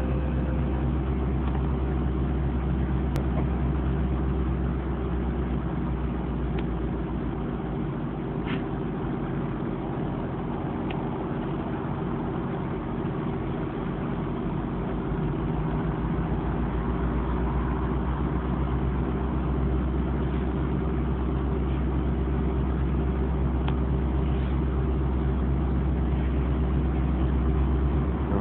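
Diesel locomotive of a GO Transit commuter train running steadily at a station stop, an even low hum with a few faint clicks. It grows slightly louder near the end as the train starts to pull away.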